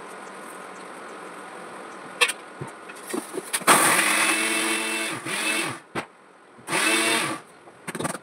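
Electric mixer grinder with a small steel jar running in two bursts, about two seconds and then under a second, grinding dry-roasted oats, makhana, almonds and cashews into powder. A few clicks come first as the jar is set on the base.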